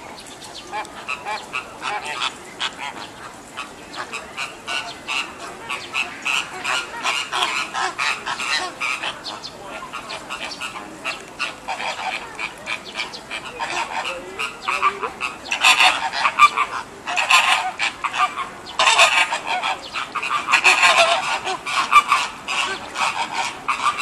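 A flock of American flamingos calling: a steady chatter of short, goose-like honks, growing louder in bursts about two-thirds of the way in.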